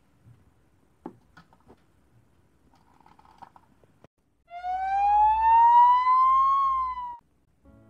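An ambulance-style siren wail, one long tone rising slowly in pitch for about two and a half seconds and dipping at the end, starting about halfway in. Before it, faint clicks of plastic toys being handled.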